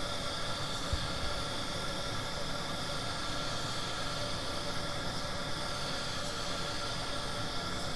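Siphon-feed paint spray gun hissing steadily as compressed air atomises paint onto a car body panel, held open without a break.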